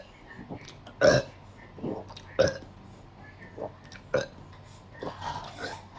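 A person burping, a run of short separate burps. The first, about a second in, is the loudest, followed by a few shorter and softer ones.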